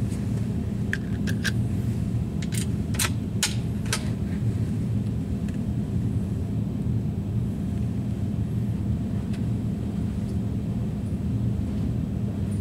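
Steady low mechanical hum, with a few light clicks in the first few seconds.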